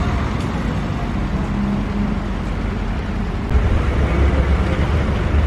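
Street traffic: cars driving past on a town street, a steady low rumble of engines and tyres that gets louder about three and a half seconds in.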